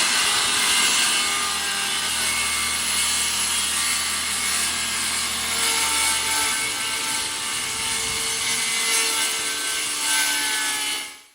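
A power tool cutting through the boat's fiberglass deck and rotten balsa coring: a loud, steady grinding noise that stops abruptly just before the end.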